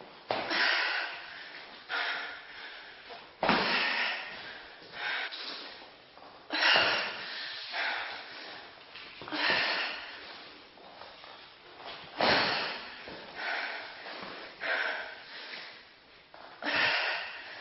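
A woman's hard, forceful breaths during an abdominal crunch exercise, one sharp hissing exhale about every second and a half in rhythm with the reps, showing heavy exertion.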